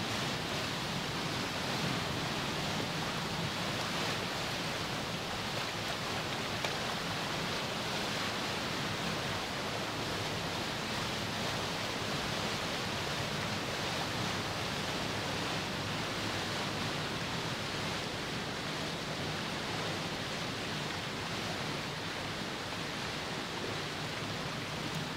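Steady rushing and churning of turbulent water pouring out from under a hydroelectric power station into the river below.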